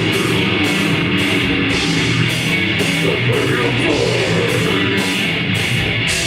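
A grindcore band playing live: distorted electric guitars and drums in a dense, loud wall of sound, with cymbals struck about twice a second.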